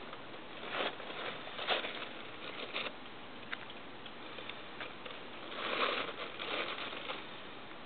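Crumpled plastic crinkling and rustling in short, irregular bursts as a cat noses at it, with a longer run of crinkling about three-quarters of the way through.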